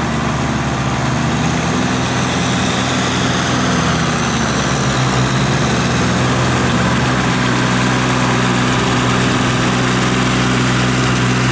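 A Kubota tractor's diesel engine runs steadily as the tractor works through a flooded rice paddy on steel cage wheels. It grows a little louder over the first few seconds as it comes closer.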